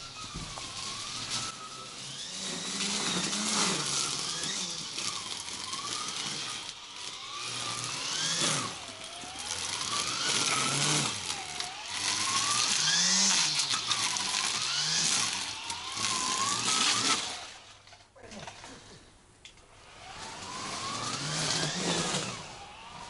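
String trimmer cutting grass, its motor pitch rising and falling again and again. It drops much quieter for a couple of seconds about three-quarters of the way through, then comes back.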